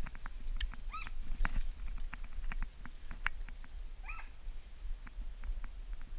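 An American foxhound baying in the distance, two short drawn calls about three seconds apart, as a hound gives tongue while following a fox's scent. Faint scattered ticks and crackles run underneath.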